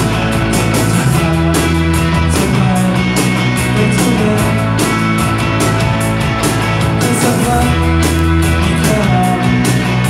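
Live rock band playing: electric guitar and electric bass over a drum kit, with steady cymbal hits keeping the beat.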